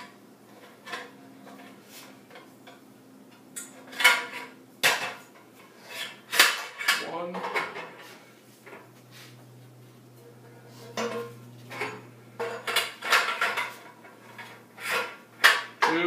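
Metal clanking and rattling as Shopsmith floating table parts and support bars are handled and fitted onto the machine: scattered knocks, coming thicker and faster in the last few seconds.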